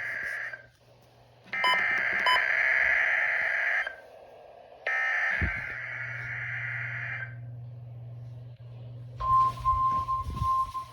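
NOAA Weather Radio weekly test signal: the SAME digital header, sent as three harsh buzzing data bursts of about two seconds each, a second apart. After a short pause the steady 1050 Hz warning alarm tone starts near the end, with crackling static over it. A low hum runs underneath.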